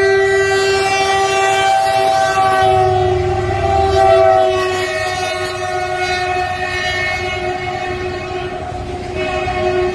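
A diesel locomotive's multi-tone horn held in one long blast as the locomotive passes close by, its pitch dipping slightly as it goes past. The engine's rumble is loudest about four seconds in, then covered freight wagons roll by.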